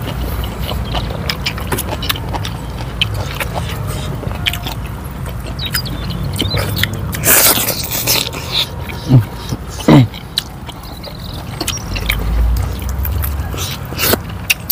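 Close-up eating sounds of chicken in red paprika sauce eaten by hand: wet chewing, lip smacks and the click of fingers in the sauce, with a loud noisy burst about seven seconds in and two short low sounds a couple of seconds later.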